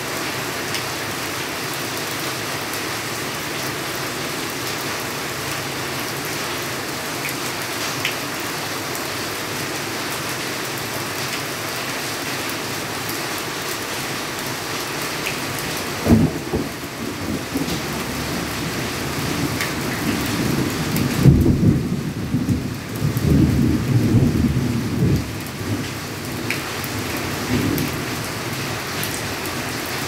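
Steady rain falling on leaves and wet ground. About halfway through, thunder breaks in with a sudden low rumble that rolls on for several seconds, loudest a few seconds after it starts, then dies away under the rain.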